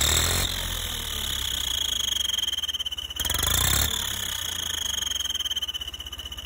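Tractor diesel engine running with an aftermarket turbo whistle fitted, giving a steady high whistle over the engine's low, even chugging. A little after three seconds in, a brief louder rush of noise comes and the whistle's pitch rises, then slowly sinks again.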